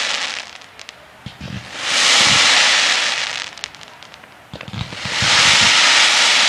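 Fireworks display: three waves of dense crackling from crackle stars, each swelling and fading over about a second and a half, with scattered sharp pops and low thuds between them.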